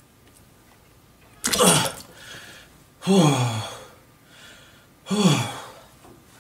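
A man groaning aloud three times, about two seconds apart, each cry breathy and falling in pitch: straining while sitting on the toilet.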